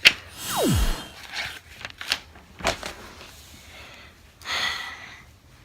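Pen scratching on paper in short strokes, with a sharp click at the start and a few lighter taps between strokes.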